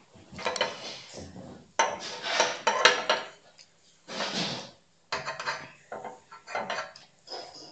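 Metal cutlery clinking and scraping on a plate while someone eats pancakes, in a run of short bursts with sharp clicks, loudest about two to three seconds in.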